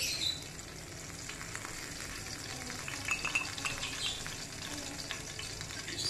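Chicken leg quarter frying in ghee in a frying pan: a steady sizzle with many small crackles and spits. A spoon brushes the chicken briefly at the start.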